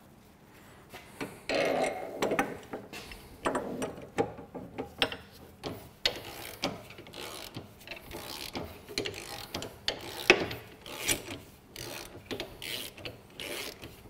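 Ratchet wrench clicking in irregular runs of strokes, with metal clinks, as it turns an inner tie rod tool to undo the steering tie rod.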